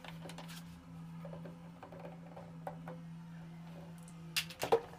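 Light scratching and small clicks of a pencil marking a plastic toilet cistern and hands handling it, over a steady low hum, with a few sharp plastic knocks about four and a half seconds in.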